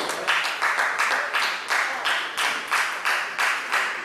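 Spectators clapping in a steady rhythm, about three claps a second, with a short echo after each clap.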